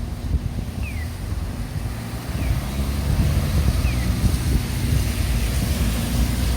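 Street traffic noise: a low vehicle rumble with wind buffeting the microphone, growing a little louder about halfway through, and a faint short falling chirp repeating about every one and a half seconds.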